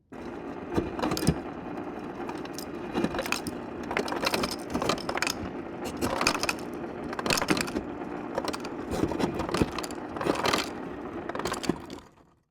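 Refrigerator door ice dispenser running: a steady motor hum with ice cubes clattering irregularly into a cup. It starts abruptly and stops about twelve seconds in.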